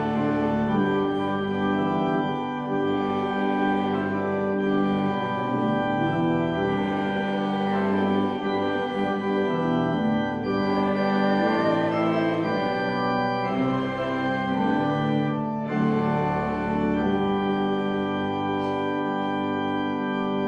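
Church organ playing slow, sustained chords that change every second or two, the music for a sung "Amen" response.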